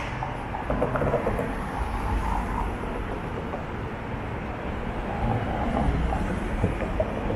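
Sydney light rail tram running along the street: a steady low rumble over city street noise.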